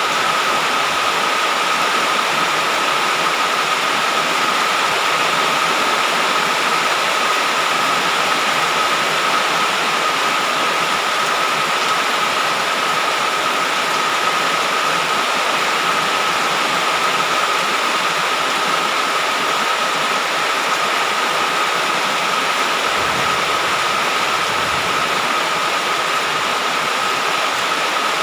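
Heavy rain falling in a steady, dense hiss, with a thin steady high tone running through it.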